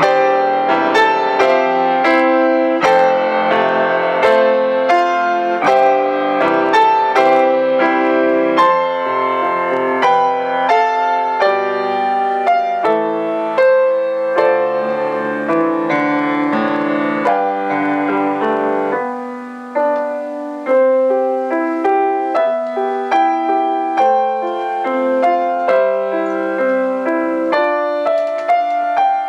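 Solo piano playing a closing voluntary, a flowing run of notes that thins to a sparser, quieter passage about two-thirds of the way through.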